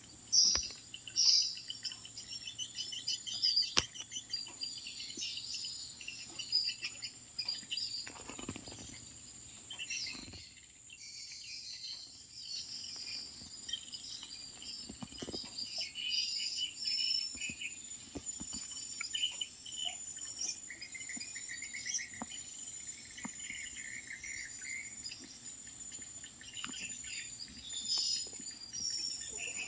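Insects and birds chirping and trilling, over a steady high insect buzz.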